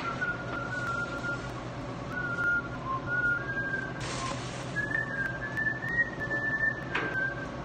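A man whistling a tune: single clear notes that step up and down in pitch, over a steady low hum. There is a brief rushing noise about four seconds in and a knock near the end.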